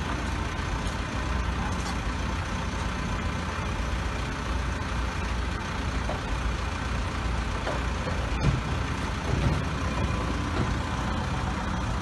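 Caterpillar 416E backhoe loader's diesel engine running steadily.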